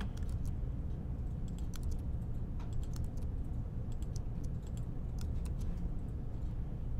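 Keystrokes on a Mac keyboard: repeated Command-V paste presses give a series of separate short clicks over a steady low hum.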